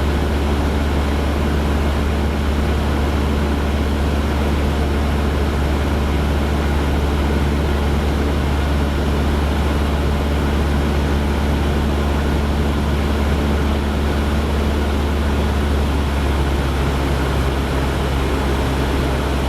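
Cessna 172's four-cylinder piston engine and propeller droning steadily in the cockpit on approach to landing. The tone of the drone shifts slightly in the last few seconds.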